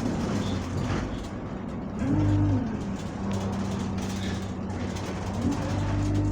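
Bus diesel engine idling with a steady hum, its revs rising briefly about two seconds in and climbing again near the end: the uneven high idle the uploader names as a fault of this bus.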